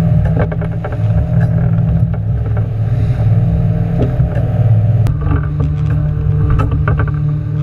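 Motorboat engine running steadily, with many short knocks and thumps over it. The engine note shifts after a sharp click about five seconds in.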